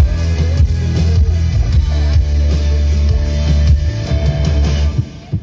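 Live rock band playing loudly through a stage PA during a soundcheck, heavy in the bass, with drums and electric guitar. The playing stops about five seconds in.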